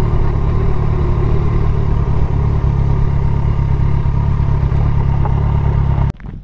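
A 2008 Kawasaki ZX-14's inline-four engine runs at low speed under a heavy, steady low rumble of wind on the onboard microphone as the sport bike rolls off onto a dirt shoulder. The sound cuts off suddenly near the end.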